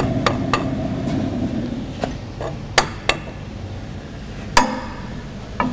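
A breaker bar with a steel cheater pipe clanking against the socket and frame as it is worked onto a seized nut. There are several sharp metallic clanks with a short ring, the loudest about four and a half seconds in.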